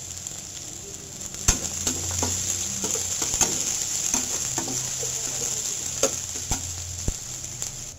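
Sliced onion and garlic sizzling in hot mustard oil in a steel kadai, stirred with a flat metal spatula. The spatula scrapes and clicks sharply against the pan several times.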